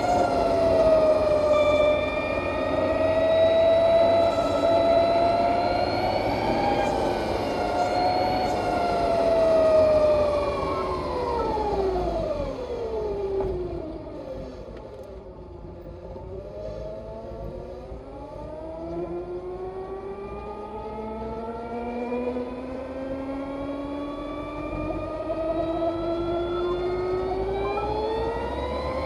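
Harley-Davidson LiveWire electric motorcycle's drivetrain whine, a high, layered, spaceship-like whine over wind and road rumble. It holds fairly steady, falls in pitch as the bike slows between about ten and fifteen seconds in, then rises steadily again as it accelerates toward the end.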